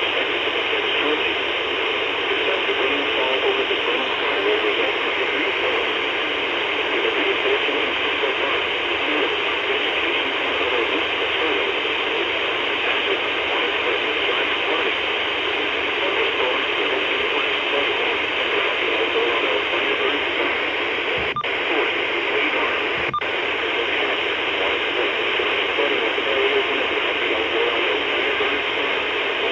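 Steady hiss of radio static with no programme on it, with two brief clicks about two seconds apart near the end.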